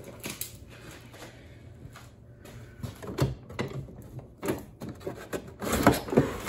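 Cardboard box and molded pulp packaging insert being handled and pulled out: a few faint clicks at first, then scattered knocks and scrapes that turn into louder, denser rustling near the end.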